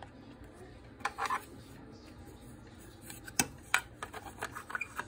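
Irregular clicks and knocks of small objects being handled, with a brief scraping rub about a second in and a faster run of sharp clicks in the last two seconds.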